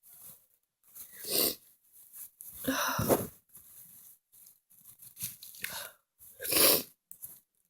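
Several short, breathy bursts of a person's breath through nose and mouth, about five of them with pauses between. The loudest come around three seconds in and near the end.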